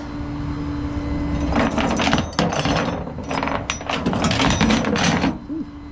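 Ratcheting, clicking mechanism worked in several rapid bursts between about one and a half and five seconds in, over a steady low hum.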